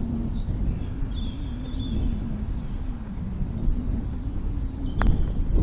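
Wind buffeting the microphone outdoors, a strong low rumble rising and falling, with small birds chirping faintly in the background. A single sharp click sounds near the end.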